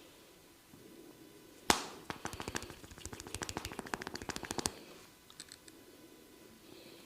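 Barber's hands working a massage: one sharp crack, then about two and a half seconds of fast, sharp percussive tapping pops, about ten a second, with a few fainter ones after.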